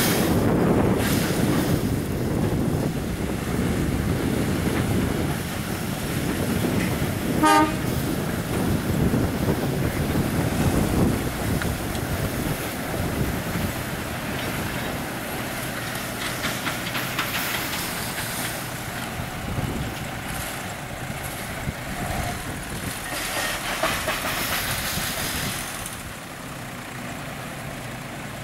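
A pair of diesel sugar-cane locomotives hauling a rake of empty cane bins past, with engines running and bins rattling along the track. The locomotive horn gives one short toot about seven seconds in, and the train grows quieter as it moves away.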